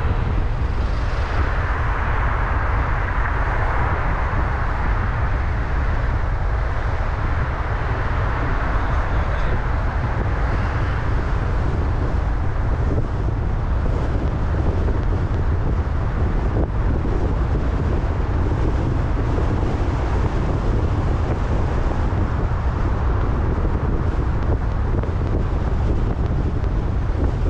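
Road noise of a car driving through city traffic: a steady low rumble with wind on the microphone. A louder hiss swells over the first few seconds and eases off about ten seconds in.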